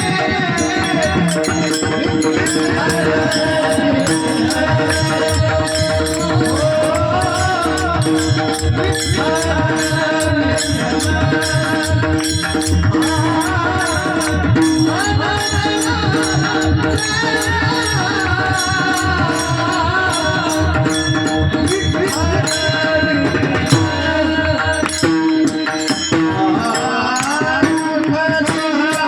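Marathi devotional singing: a male singer carries an ornamented melody over steady held tones, accompanied by fast, dense mridang drumming.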